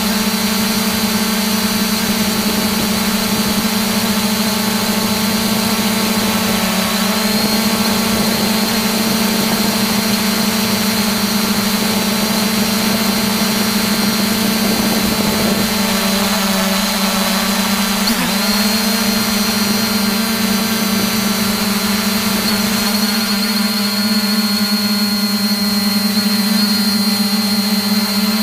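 A drone's electric motors and propellers, heard up close from its onboard camera: a steady, loud hum with a high whine above it, the pitch wavering briefly a few times as it manoeuvres.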